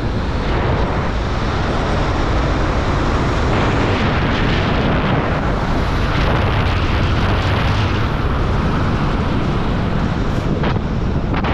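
Steady rush of wind across a skydiver's camera microphone during a descent under an open parachute.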